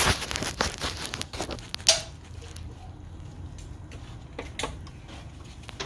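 Scattered clicks, scrapes and knocks of hand tools working a stuck fastener that keeps spinning in place, with a louder knock right at the start and another about two seconds in.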